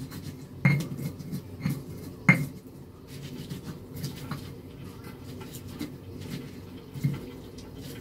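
Indonesian mortar and pestle (cobek and ulekan) pounding and grinding chilies, shallots, garlic and candlenuts into a coarse spice paste. It makes irregular knocks and a low scraping grind, with the two loudest strikes in the first few seconds.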